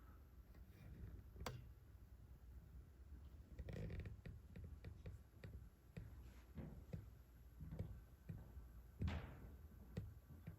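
Near-silent room tone with scattered faint clicks and knocks, a sharp click about a second and a half in and a louder knock near the end.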